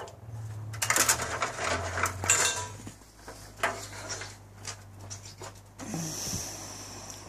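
Metallic clattering and knocking from a homemade vertical-axis wind turbine whose freely pivoting wings swing on castor-wheel mounts. The clatter is densest in the first three seconds, then thins to scattered knocks.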